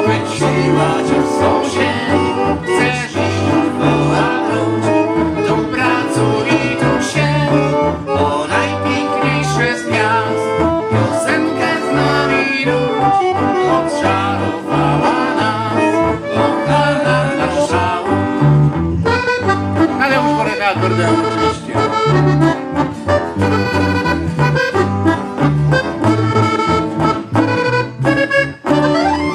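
Polish courtyard band (kapela podwórkowa) playing an instrumental passage live: accordion and clarinet over strummed acoustic guitars and an electric guitar, with a steady bass line.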